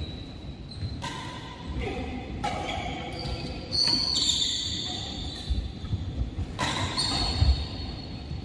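Badminton rally: rackets strike the shuttlecock about four times, each hit a sharp crack ringing in the hall, with short high squeaks of shoes on the court floor between hits.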